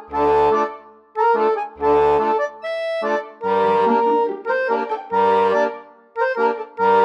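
Background music: a melody of steady notes in short phrases with brief gaps between them, several phrases with low bass notes underneath.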